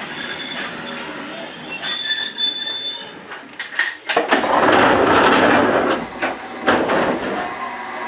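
Railway noise from a Toyama Chiho Railway train at a station stop. Thin squealing tones come first, then from about four seconds in a loud rushing noise lasts about two and a half seconds, with sharp clicks before and after it.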